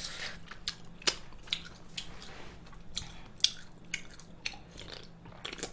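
Close-miked mouth sounds of eating: irregular sharp wet clicks and smacks of chewing, about one or two a second, followed later by sips and swallows from a can of cola.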